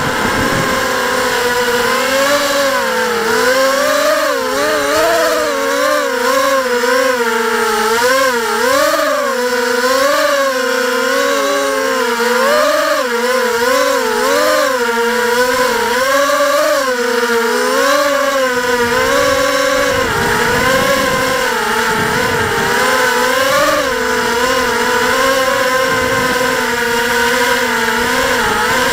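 Small multirotor drone's electric motors and propellers buzzing, the pitch rising and falling continually as the throttle changes.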